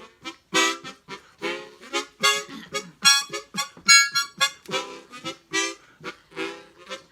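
A short instrumental tune of quick, separate notes, a few to the second.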